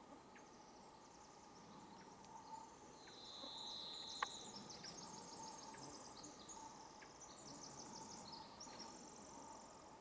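Pacific wren singing one long, faint song of rapid high trills and tinkling notes that tumble on for about nine seconds, with a buzzy trill about three seconds in. A single sharp click cuts in about four seconds in.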